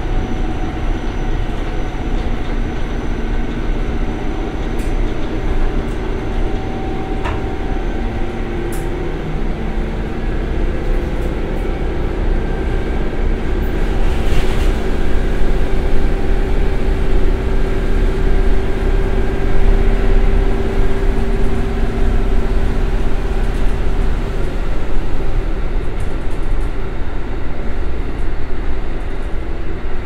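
Onboard running sound of a JR Hokkaido KiHa 183 series diesel railcar: its DML30HSI V12 diesel engine is under power with a steady drone over the wheel and rail noise. About 23 seconds in, the engine is throttled back to coasting and its drone drops away, leaving the running noise of the wheels on the rails.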